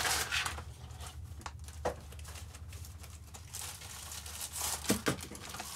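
Plastic packaging crinkling and a cloth drawstring pouch rustling as they are handled and opened, with scattered small clicks.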